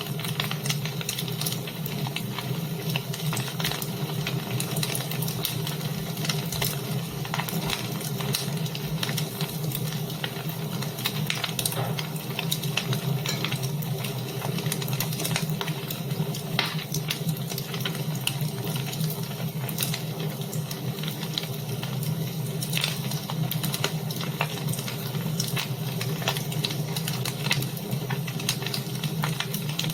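Wood fire burning in a fireplace: a steady hiss with frequent small crackles and pops scattered throughout.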